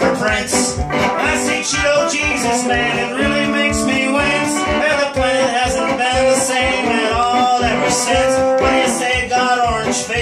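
Instrumental break of acoustic duo music: a resonator guitar and a second small-bodied guitar picked together, with some gliding notes over a steady low beat.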